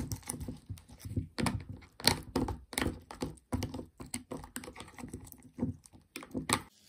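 Small plastic toy dagger digging and prodding into slimy gel packed in a plastic toy case: irregular soft clicks, taps and squishes, several a second.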